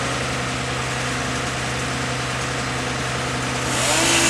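Fire engine's diesel running steadily to drive the aerial ladder, an even low drone with a fine regular pulse. Near the end a rising whine with a bright hiss comes in over it and is the loudest part.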